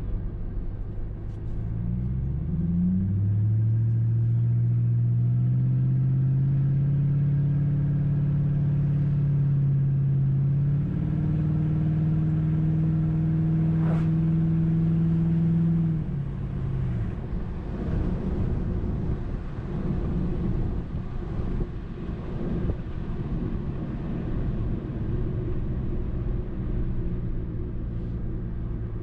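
2005 Mercury Grand Marquis's 4.6-litre V8 breathing through an H-pipe with the mufflers deleted, under acceleration: the revs climb over the first few seconds, hold steady, and step up about eleven seconds in. Around sixteen seconds the driver lifts off, the pitch drops, and the car cruises with a lower, rougher exhaust note.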